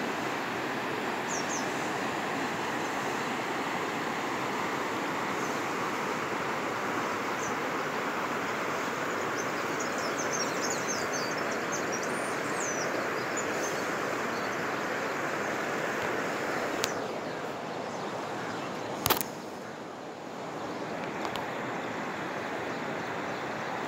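Steady outdoor rushing noise, with short high chirps scattered through the first half. A click comes about 17 seconds in and a sharp knock about 19 seconds in, and the noise eases for a few seconds around them.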